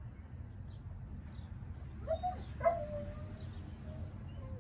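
An animal's soft calls: two short pitched calls about half a second apart, the second held and slowly falling in pitch, then a fainter one near the end, over a steady low rumble.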